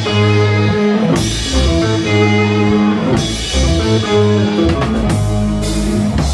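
Live rock band playing: electric guitars holding chords over low sustained notes, with a drum kit, and a cymbal crash about one, three and five seconds in.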